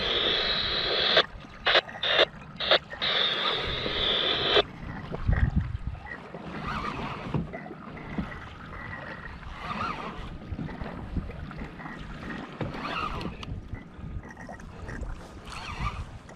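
Wind buffeting the microphone and water slapping against a plastic kayak hull. A steady high hiss fills the first four and a half seconds, cut by several loud gusts, then gives way to a choppier, softer wash of water.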